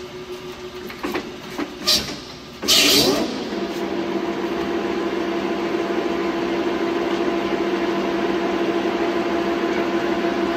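LeBlond heavy-duty gap-bed lathe: with the motor running, the headstock levers click a few times, then the spindle engages with a loud short rushing burst about three seconds in. The chuck spins up and the headstock gearing settles into a steady whine.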